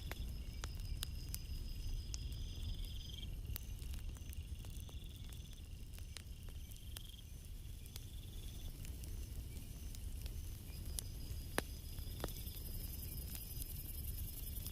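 Crickets trilling at night, several at different pitches, in overlapping trills a second or two long, over a low steady rumble with scattered sharp clicks.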